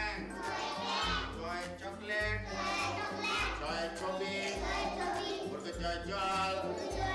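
Background music with a steady low beat about once a second and a sung melody over it.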